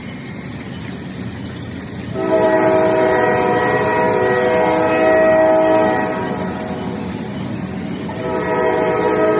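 A low rumble with a loud multi-note horn sounding a steady chord from about two seconds in, easing off around six seconds and sounding again near the end.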